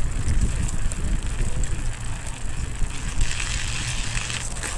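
Mountain bike being ridden, heard from a camera mounted on the bike: wind buffets the microphone with a constant low rumble, and the tyres hiss on the trail. A louder hiss swells a little past the middle and fades before the end.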